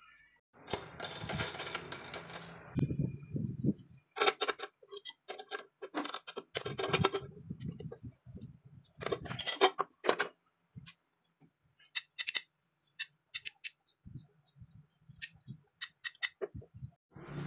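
Irregular clicks and rattling, with short bursts of clattering noise, like small hard objects being handled.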